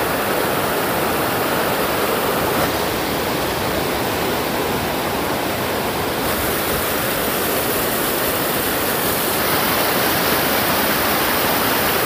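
Waterfall: a steady, full rush of falling water.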